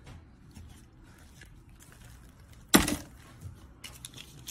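Toy vehicles handled on a tabletop: one loud, short knock of a toy being set down about three seconds in, with a few faint clicks of the toys around it.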